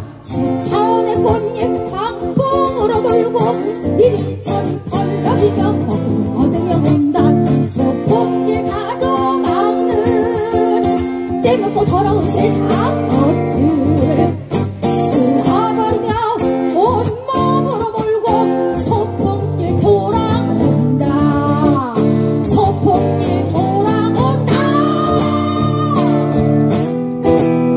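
A live song: a voice singing a slow melody over strummed acoustic guitar.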